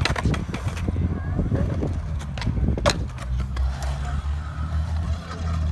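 Kick scooter riding on skate-park concrete: wheels rolling, with a few sharp clacks as it hits the ground, the loudest near the start and about three seconds in, over a low steady rumble.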